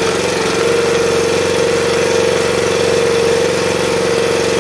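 Log splitter's 13-horsepower Honda engine running steadily and driving its hydraulic pump, a constant hum with a strong high tone, as the blade is set and the ram pushes a log.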